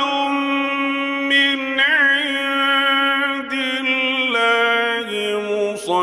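A man's voice in mujawwad Quran recitation holding one long note on a stretched vowel, with a short quavering ornament about two seconds in. Near the end it steps down to a lower pitch twice.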